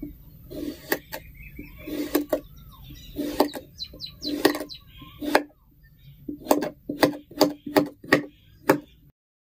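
Kinetic sand being handled, giving a series of soft thuds with clicks on top, spaced about half a second to a second apart and then quickening to about two a second. The sound cuts off suddenly near the end.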